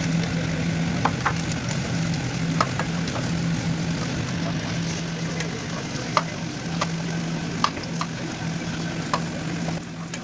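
Food sizzling in a frying pan, with a utensil clicking against the pan now and then as it is stirred, over a steady low hum.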